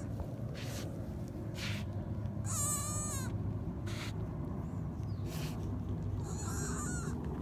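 White-tailed deer fawn giving a short, high, wavering bleat about two and a half seconds in and a fainter one near the end, with several short breathy sniffs close to the microphone as it noses and licks.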